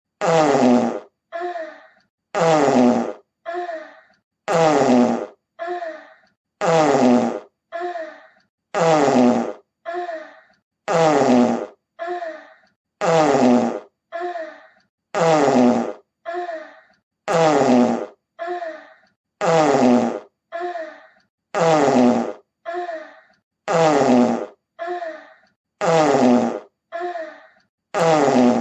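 A fart sound effect played on a loop: one loud, drawn-out fart followed by two or three short, fainter ones. The same pattern repeats about every two seconds.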